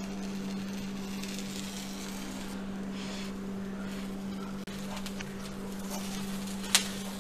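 A steady low hum runs throughout. Over it come faint soft rustles as a toasting sandwich is pressed down on a tawa with a silicone spatula and then by hand. One sharp click comes near the end.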